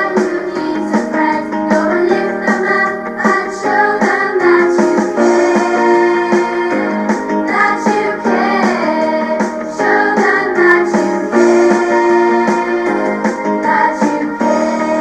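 A song playing, with a sung melody over instrumental accompaniment.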